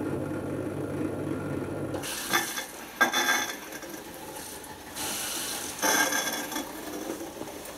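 Hotpoint Aquarius Plus FDW70 dishwasher running a wash cycle: its steady low motor hum cuts off about two seconds in, followed by several short bursts of hissing noise from inside the machine.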